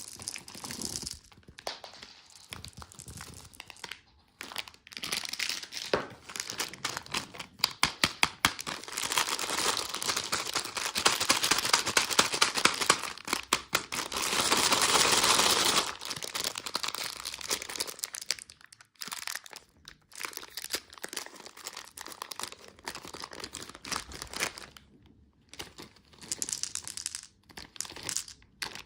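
Candy wrappers and packaging crinkling and tearing as they are unwrapped by hand, with many sharp clicks and rustles. The crinkling is densest and loudest for several seconds around the middle.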